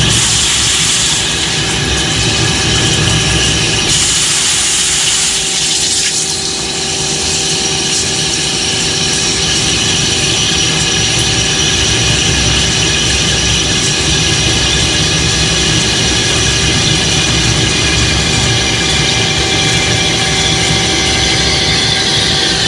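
Metal-cutting lathe running a parting-off cut on a steel part: a steady machine whine with several held tones over a hiss, the hiss brightening for a couple of seconds about four seconds in.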